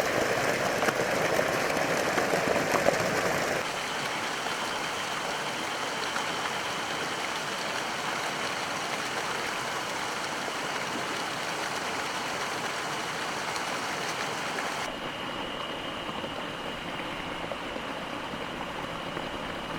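Steady rushing noise of running water. It drops abruptly about three and a half seconds in and turns thinner again near the end, with a faint high steady tone in the later part.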